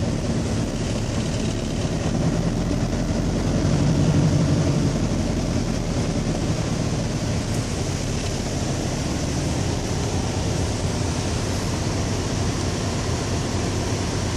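Scania 142's V8 diesel engine running steadily, heard from inside the cab while driving, swelling louder briefly about four seconds in.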